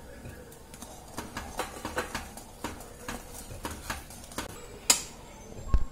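Metal spatula scraping and clicking against a metal pan while a thickening milk-and-chhana mixture is stirred, in irregular strokes, with a sharper click about five seconds in and a low thump near the end.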